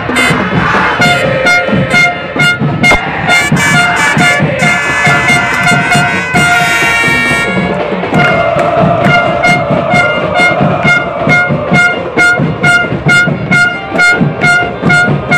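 Football supporters' drums beating a steady rhythm, about three strokes a second, with a horn sounding short repeated notes on a few fixed pitches and a longer held stretch a little past the middle, over the crowd in the stands.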